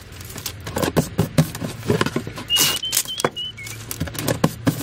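Brown paper packing tape being pulled and torn and pressed onto a cardboard box, with the flaps rustling and knocking: a run of short crackles and taps, a louder tearing rush about two and a half seconds in, and a few brief high squeaks just after it.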